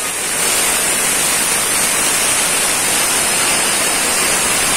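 DeWalt D28730 chop saw's abrasive cut-off wheel grinding through a steel bar under load: a loud, steady, hissing grind with a strong high edge.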